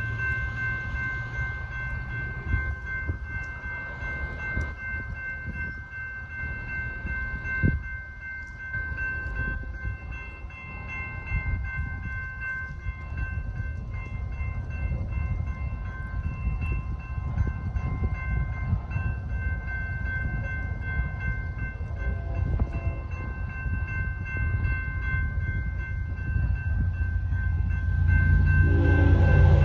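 Railroad crossing warning bell ringing steadily while an approaching BNSF diesel freight train rumbles closer. Its horn sounds and the rumble grows louder near the end.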